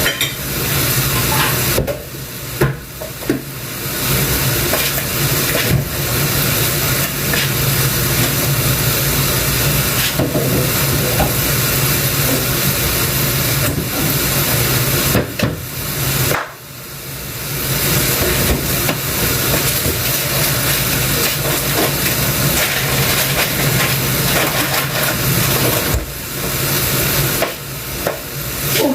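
A loud, steady hiss over a low hum, dropping away briefly a few times.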